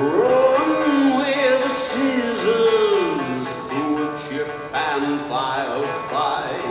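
Rock band playing live through a large amplified sound system, heard from the crowd: an electric guitar riff of sliding, bending notes over the band.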